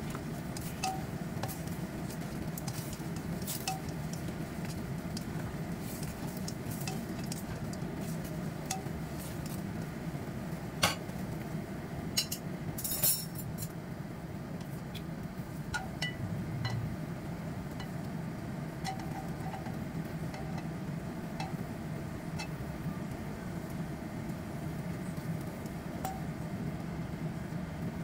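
Stir-frying in a wok: a spatula scraping and tapping against the coated wok as pork ribs and bell pepper pieces are tossed, giving scattered light clicks with a few louder knocks around the middle, over a steady low hum.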